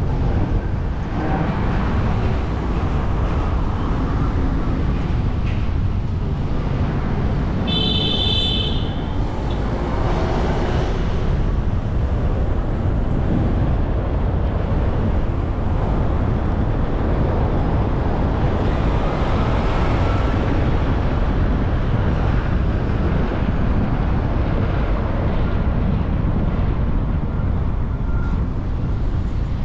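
Steady road, tyre and wind noise from a car driving through city traffic. About eight seconds in, a brief high-pitched tone with several stacked pitches sounds for about a second.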